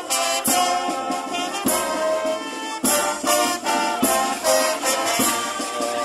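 A police brass band marching and playing a tune in held brass chords, with drum strokes beneath.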